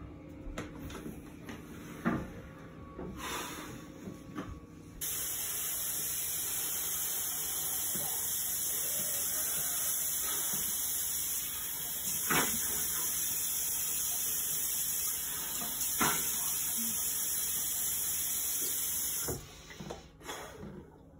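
Bathroom sink faucet running in a steady stream, turned on about five seconds in and off near the end. A few sharp knocks and clicks come before it and during it.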